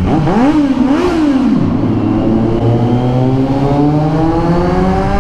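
Kawasaki Z900's inline-four motorcycle engine blipped twice in quick succession, then accelerating with a steadily rising pitch, heard through an exhaust fitted with a dB killer and echoing in a tunnel.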